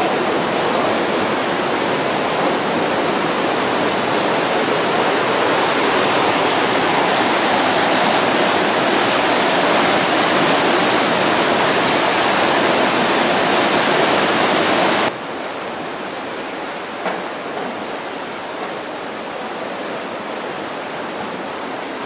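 Whitewater river rushing loudly over rapids, a steady roar of water. About fifteen seconds in it cuts off abruptly to a quieter, steady rush.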